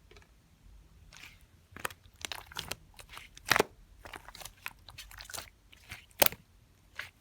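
Slime being squeezed and pressed by hand, giving irregular crunchy crackles and sharp pops, a few louder snaps among softer clicks.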